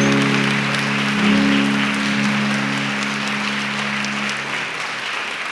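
Audience applauding over a held musical chord, which fades out about four and a half seconds in.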